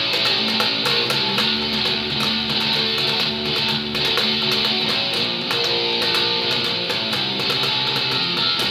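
Four-string electric bass plucked with the fingers, playing along with loud, full rock music.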